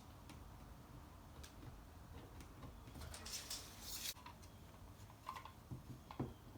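Faint handling clicks and taps, with about a second of scraping on a hard surface around the middle and a few light knocks near the end.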